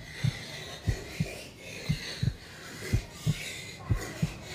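Heartbeat sound effect: low double thumps (lub-dub) about once a second, steady and evenly paced.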